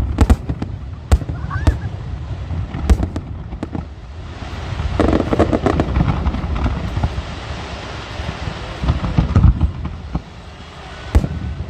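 Fireworks going off: sharp bangs near the start and again near the end, with several seconds of dense crackling in between.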